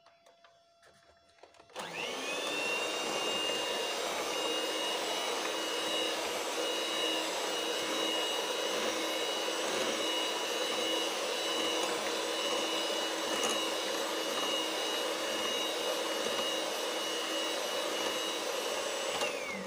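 Electric hand mixer switched on about two seconds in, its motor spinning up to a steady high whine as the beaters whisk cake batter, then winding down just before the end.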